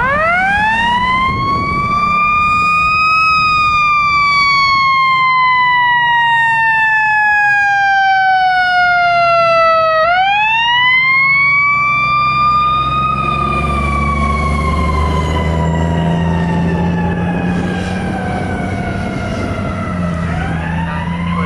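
Fire engine's siren wailing in long cycles. Each time the pitch climbs over about three seconds and then sinks slowly for about seven; it is wound up again twice. Partway through, the truck's engine rumble grows louder beneath the siren as the truck passes and pulls away.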